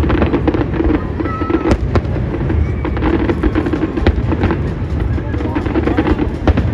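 Aerial fireworks bursting in quick succession: many sharp bangs and crackles over a steady background of music and voices.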